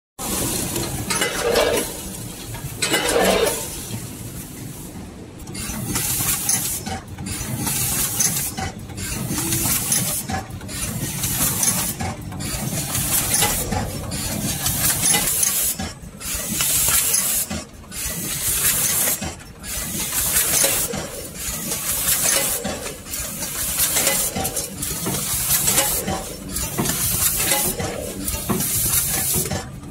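Automatic grain bag-filling packaging machinery running, with a rattling hiss that pulses in a regular cycle, breaking off briefly about once a second. Two louder rushes come in the first few seconds.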